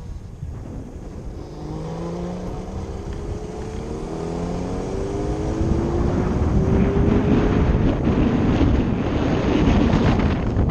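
A motorcycle accelerating: a pitched whine from the drive climbs steadily in pitch over several seconds. Rushing wind on the microphone then grows loud and covers it.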